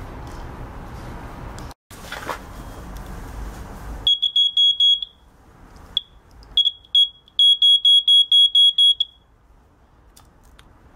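Electronic buzzer beeping a high tone in quick pulses, about six a second, in three runs with short breaks between, starting about four seconds in. Before it, a steady low hiss with light handling noise.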